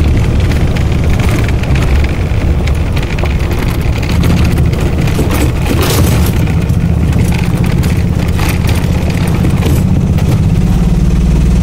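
A vehicle driving along a gravel road: a steady low engine and road drone, with crunching and rattling from the tyres on the gravel about halfway through. Near the end the drone evens out as the road turns to pavement.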